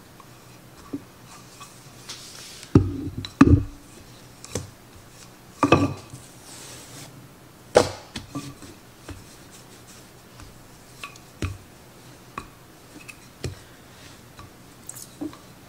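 Wooden rolling pin knocking and rolling on a countertop as bread dough is pressed and rolled out by hand. Several sharp knocks come in the first eight seconds, then lighter taps.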